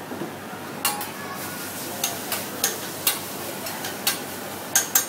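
Spatula striking the steel flat-top griddle while meat is chopped and worked on it: about eight sharp clacks at irregular intervals over a steady background hum.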